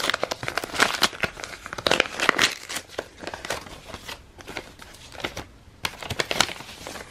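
Hands tearing open a paper envelope and pulling out the note inside: irregular tearing, crinkling and rustling of paper.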